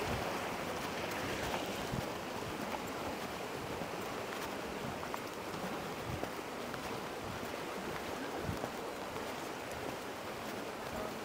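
Steady rush of flowing river water from the Vilnia river.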